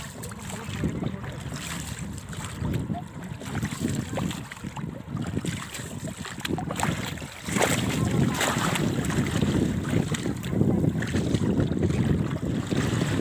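Water sloshing and splashing against the side of a rowing boat under way, with wind buffeting the microphone. It gets louder a little past halfway.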